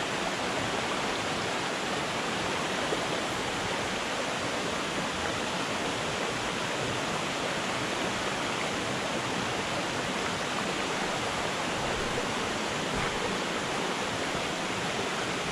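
Shallow rocky creek rushing steadily over stones and small riffles.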